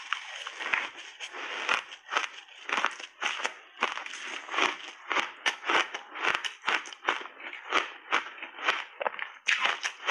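Close-up chewing of frozen berry ice chunks coated in matcha and milk powder: hard, rapid crunches about two to three a second as the ice is bitten and cracked between the teeth.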